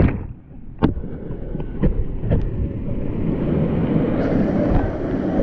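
Muffled, low rushing of water on a wet microphone, its high sound cut off suddenly at the start, with a few sharp knocks about one, two and two and a half seconds in.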